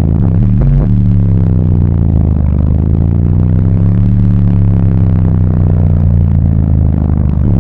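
Car audio system's four Crescendo Audio Contralto 15-inch subwoofers playing a bass demo, heard inside the car's cabin: a short stretch of choppy bass, then one very loud, long low bass note held from about a second in, wavering slightly in pitch.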